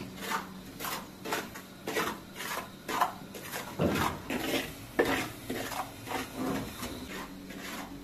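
A spoon stirring in a pot or bowl, scraping and clinking against its side in a steady rhythm of about two strokes a second.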